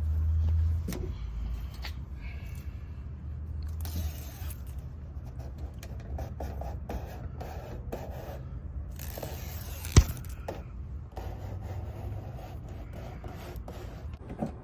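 Irregular rubbing and scraping as an adhesive-backed LED underglow strip is peeled and pressed by hand onto a car's plastic side skirt, with scattered small clicks and one sharp click about ten seconds in.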